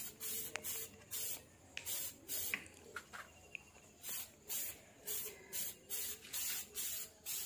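Aerosol spray can spraying base coat onto a motorcycle body panel in short hissing bursts, about two a second, as the can is swept up and down.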